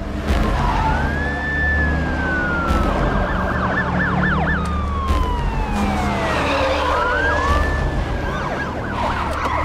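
Police car sirens wailing and yelping: a long rise-and-fall wail about a second in and again around seven seconds, with short, fast yelps in between and near the end, over a low rumble.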